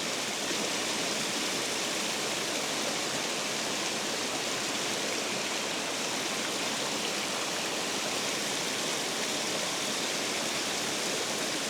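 Steady rush of water pouring over a spillway.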